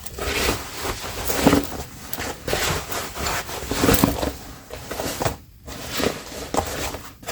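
Irregular rustling and rubbing of fabric being handled, with a few light knocks and scrapes.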